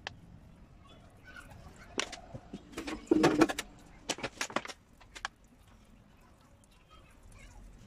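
A run of knocks and clatters as a chainsaw is handled and moved about in a sheet-metal tub, loudest in a quick cluster about three seconds in and a few more knocks after it.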